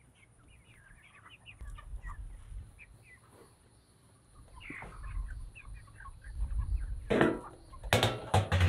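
Cornish cross chicks peeping, many short high chirps. Near the end, a few loud metallic clatters as the lid of a galvanized can is handled.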